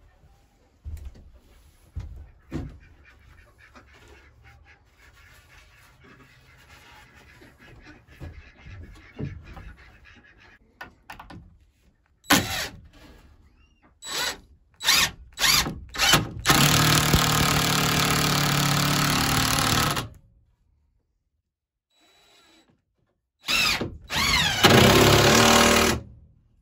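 Cordless drill driving screws into old wooden boards. Halfway through come several short trigger bursts, then a steady run of a few seconds; after a pause, a second run near the end rises in pitch as it goes. Before that, only light knocks of boards being handled.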